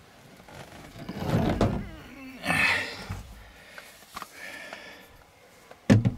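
Close handling noises of a camera being moved over a truck bed and a cooler lid: rustling and scraping, a sharp click a little past four seconds in, and a loud knock near the end.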